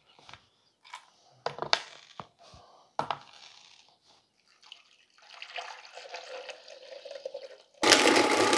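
Hard candy shells cracking as Skittles are crushed one at a time under a metal tool on a cutting board: several sharp cracks over the first three seconds. A softer rushing sound follows, then a countertop blender starts up loudly about eight seconds in.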